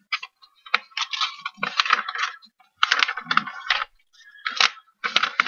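A sheet of paper rustling and crinkling as it is folded and creased by hand, in a string of short, crisp bursts with a few sharp taps and soft thuds.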